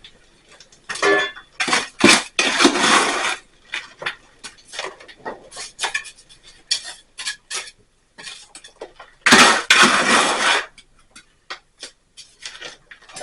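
Hard objects clinking, knocking and scraping in an irregular series of short strikes, with two longer scrapes of about a second each, one about two seconds in and one about nine seconds in.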